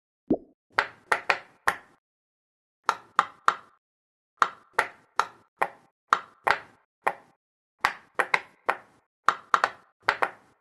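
Silicone pop-it fidget toy bubbles being pressed one after another: about two dozen sharp pops in quick groups of two to four, with short pauses between the groups.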